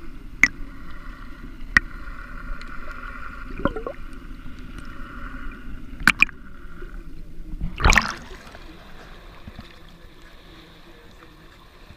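Water heard through a submerged camera: a muffled, steady underwater noise with a few sharp clicks. A loud splashy burst comes about eight seconds in as the camera comes up above the surface, followed by quieter, even water sound.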